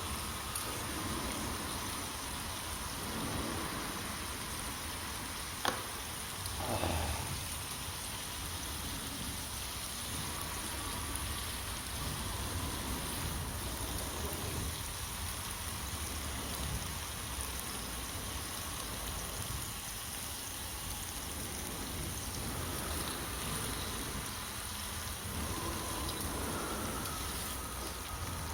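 Steady rushing outdoor noise like running water, with a sharp click about six seconds in and a brief swish just after.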